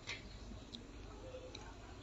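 Faint background with distant voices and a few soft clicks.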